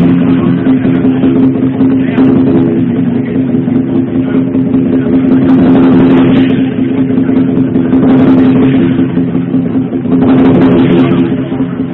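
Lion dance percussion (drum, gong and cymbals) played loud and without a break, with steady ringing tones underneath.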